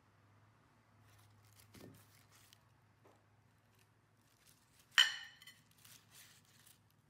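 A hand-made glazed ceramic bowl clinks once against another ceramic dish about five seconds in, a sharp clink with a brief ringing tail. Faint rustling of kraft packing paper comes before and after.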